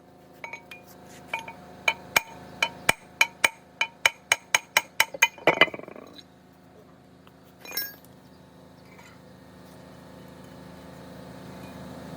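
Metal parts being tapped or struck: about eighteen sharp metallic clinks with a ringing tone, coming faster and faster over the first six seconds. A short scrape follows, then one more clink.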